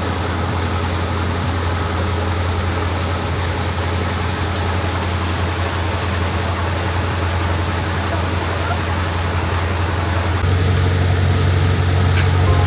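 An engine running steadily with a low hum, over a wash of rushing water. About ten seconds in the sound changes abruptly to a louder engine hum.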